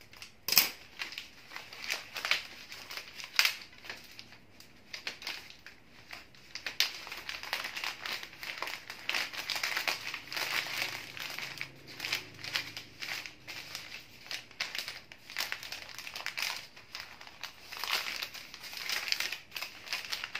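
Paper bouquet wrapping crinkling and rustling in irregular bursts as hands gather and fold it around the flower stems, with one sharp click about half a second in.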